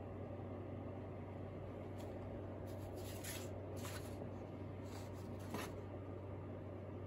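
Drawing boards and paper sliding and rustling as artworks are set down and picked up from a pile on a table: several short swishes over a steady low hum.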